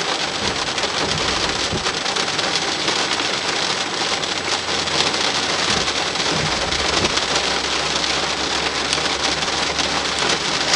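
Steady rain falling during a thunderstorm, an even hiss, with a low rumble underneath through the second half.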